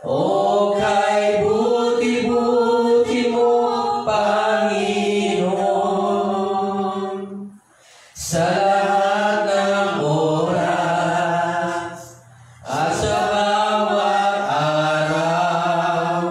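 A man singing a slow worship song a cappella into a handheld microphone, in long held notes, with two brief pauses between phrases, about halfway and three-quarters of the way through.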